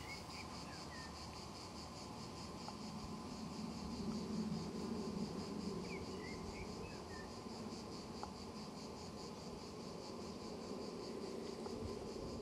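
Insects chirping in a steady, even rhythm, about four chirps a second, with a few short bird chirps. A low hum swells and fades in the middle.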